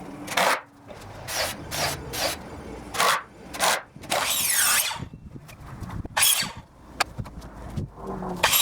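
Shop work on a wing storage rack: a power tool running in short bursts, with squeals and rubbing scrapes, and a longer squealing run about four seconds in.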